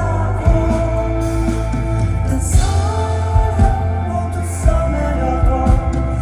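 Live rock band playing a song, with a steady drum beat under a heavy low end.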